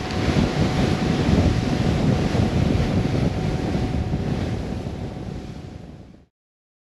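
Wind buffeting the microphone over the rush of water, with a faint steady tone underneath, fading out about six seconds in.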